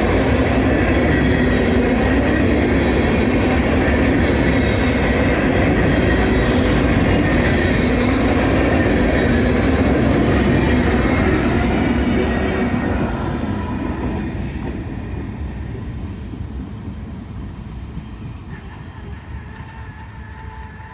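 A CSX freight train of Herzog cars rolling past, its wheels running on the rails in a loud, steady clatter. About twelve seconds in, the sound begins to fade steadily as the end of the train moves away.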